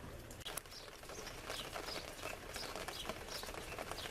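Small birds chirping, short high chirps repeated every fraction of a second, over a faint patter of rain drips.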